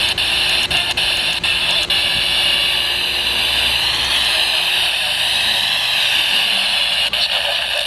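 Weather radio receiver giving a steady static hiss between broadcast voices, with a quick run of clicks in the first couple of seconds.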